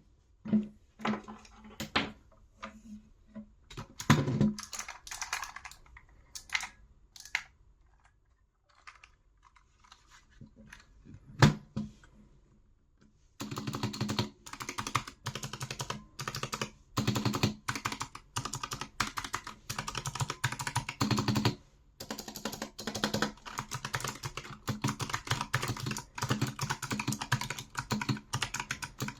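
Razer Huntsman Mini keyboard with Purple Clicky Optical switches being typed on. First come scattered single key clicks with pauses and one louder strike. About halfway through it breaks into fast continuous typing, with one short break later on.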